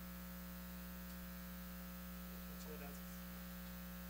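Steady, faint electrical mains hum from the sound system, with no speech.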